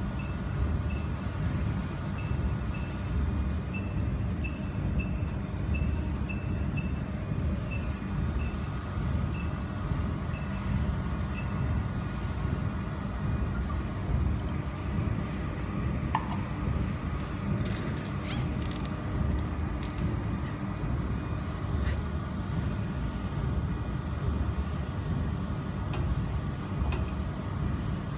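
Jewelry laser welding machine running with a steady low hum. Short high beeps repeat about twice a second for roughly the first twelve seconds, then stop.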